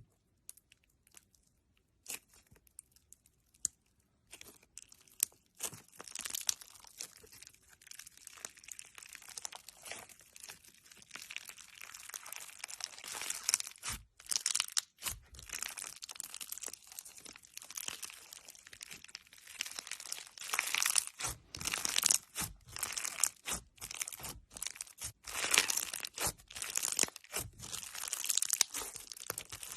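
Crunchy slime being squeezed and pressed by hand: a dense, irregular crackling and crunching, sparse single pops at first that fill in to a near-continuous crackle after about five seconds.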